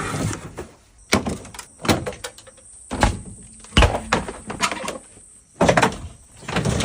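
A string of sharp knocks and bangs, about one a second, some followed by a brief ring, with a faint high whine in the middle stretch: mechanical work on a car.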